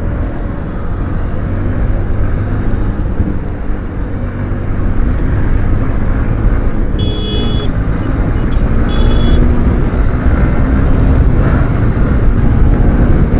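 Motorcycle riding on the road: steady engine and road rush that grows louder through the stretch, with two short high-pitched beeps about seven and nine seconds in.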